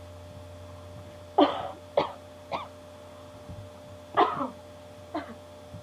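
A person coughing in two short fits, three coughs and then two, the first of each fit the loudest, from a sore throat.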